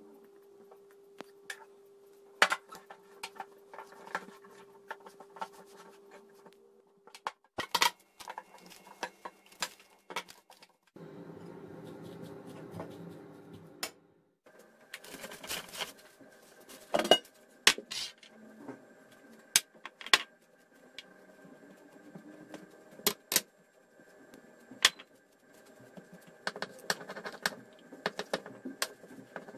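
Kitchen food-preparation sounds: hands mixing flour dough in a glass bowl, then a fork clinking and scraping on a plate while mixing minced meat and onion, then a wooden rolling pin rolling dough on a countertop. Sharp clinks and taps come at irregular times over a faint steady hum.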